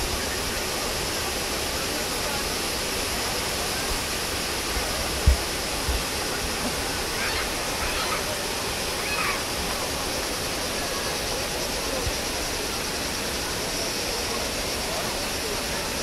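A wide waterfall of many cascades pouring into a pool: a steady, even rush of falling water. Faint voices come through now and then, and there is one brief low thump about five seconds in.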